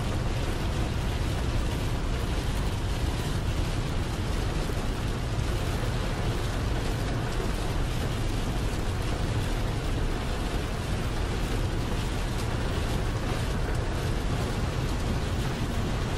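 Steady in-cab noise of a semi truck driving on a wet highway in rain: a low engine and road rumble under an even hiss of rain and tyre spray.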